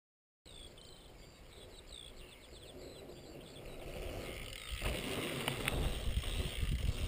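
Silence for the first half second, then birds chirping over quiet outdoor ambience. From about five seconds in, a louder rumbling rush with a few sharp clicks takes over.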